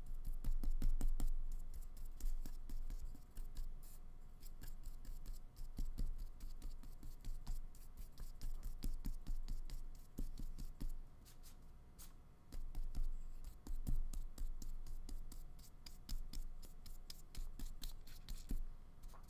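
Paintbrush scratching and dabbing acrylic paint on paper: a rapid, irregular run of short brush strokes.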